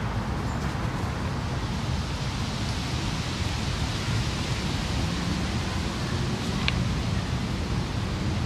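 Steady low rumbling background noise with a fainter hiss above it, and one faint tick about two-thirds of the way through.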